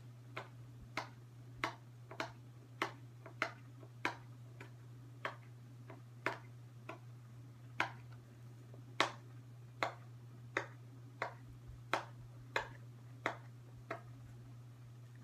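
Irregular sharp clicks, about one or two a second and unevenly spaced, over a steady low electrical hum.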